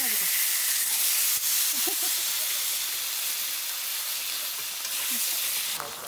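Food frying in a hot pan with a steady sizzling hiss, as spattering oil and juices cook off; the sizzle slowly weakens and drops off just before the end.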